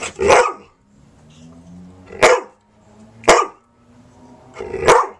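A dog barking four times, single sharp barks one to one and a half seconds apart.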